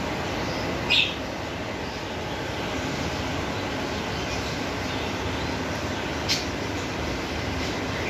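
Two short, sharp budgerigar chirps, the louder about a second in and another about six seconds in, over a steady rushing background noise.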